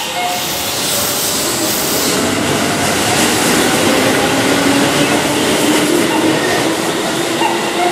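Keihan electric commuter train moving alongside the platform, with the steady rumble of its wheels on the rails. The whine of its motors rises slowly in pitch as it speeds up, pulling out of the station.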